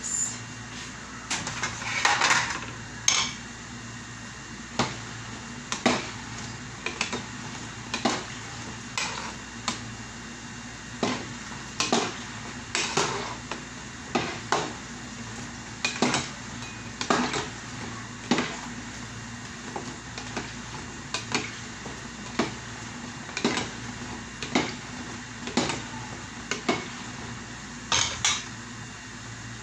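A metal cooking spoon clinking and scraping against a pot as food is stirred, with sharp knocks at irregular spacing, roughly one a second. A steady low hum runs underneath.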